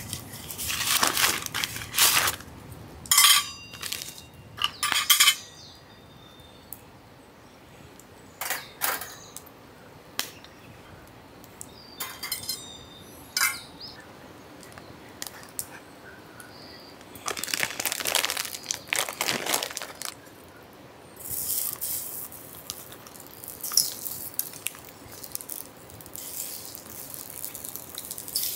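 Split firewood knocked and clinked into place on a burning campfire in a metal fire stand. Then a plastic sausage packet rustles, and near the end sausages in a hot skillet over the fire sizzle and pop.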